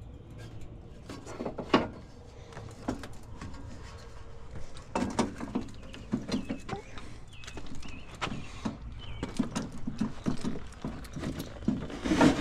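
Irregular knocks, bumps and scrapes of a heavy PTAC air-conditioning unit being handled and lifted up into its wall opening, with a loud knock about two seconds in and another near the end.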